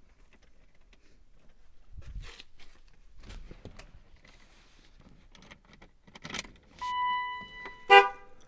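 Clicks, rustling and keys jangling as the car is readied to start, then a steady electronic warning beep lasting about a second near the end, followed by a short, loud ringing chime.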